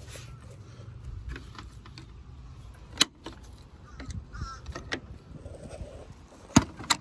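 Sharp plastic clicks and knocks from hands working the radiator fan's plastic retaining clips: one loud click about three seconds in and two more close together near the end, over a low rumble of handling.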